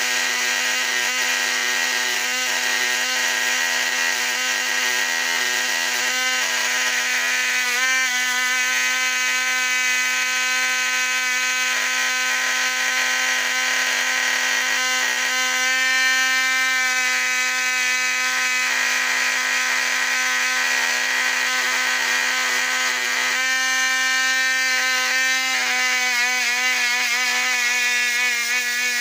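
Lionel 1065 locomotive's electric motor running on the bench, powered directly from the transformer: a steady whir and whine with a constant hum beneath, its pitch shifting a few times as the speed changes.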